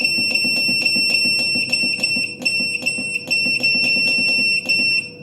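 Gas boiler control panel beeping: a loud, high electronic tone broken by clicks several times a second as the hot-water setting is run up to maximum, stopping abruptly near the end. A faint steady hum of the running boiler lies underneath.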